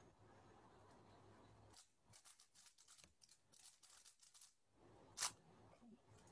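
Faint quick clicks of a 3x3 Rubik's cube's plastic layers being turned in a speed solve, coming in short runs, with one louder click a little after five seconds in.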